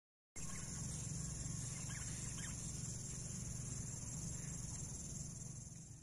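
Steady high-pitched insect buzzing over a low rumble, with a few faint short chirps, fading out at the end.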